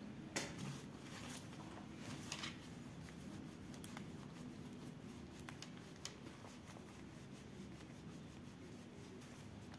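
Quiet room tone with a few faint, scattered clicks and light rustles.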